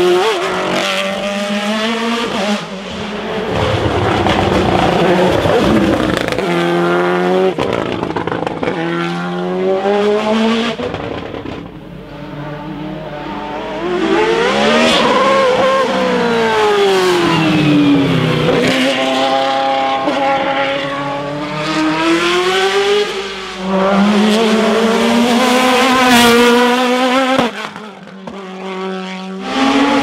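Racing car engines, from open sports prototypes and a single-seater, revved hard through quick gear changes as they pass close by. The engine note climbs and drops repeatedly, with one big rise and fall in pitch midway as a car goes by.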